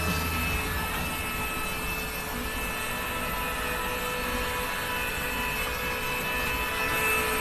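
High-power dryer running steadily, blowing a strong stream of air with a constant motor whine over the rush of air.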